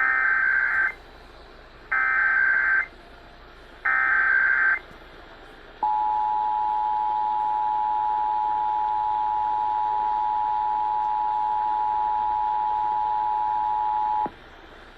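Emergency Alert System Required Monthly Test: three short screeching bursts of SAME header data tones, each about a second long with about a second between them, then the steady two-tone EAS attention signal for about eight and a half seconds, which cuts off sharply. The data bursts carry the alert's coded header and the attention tone announces the test.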